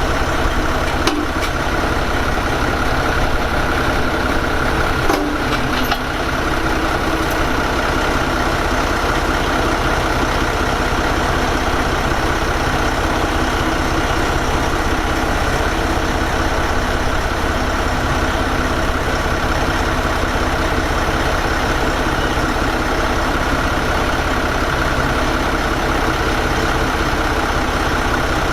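Heavy diesel machinery running steadily, with a constant drone and a few short knocks about a second in and again around five to six seconds in.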